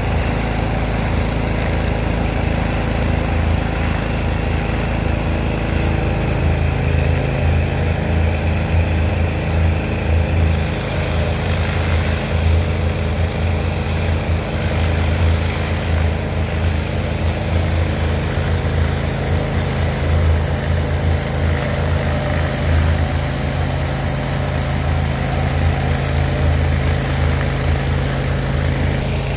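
Honda-powered Landa hot-water pressure washer running steadily, its engine droning under the hiss of the water spray. A brighter, higher hiss comes in about ten seconds in and falls away near the end.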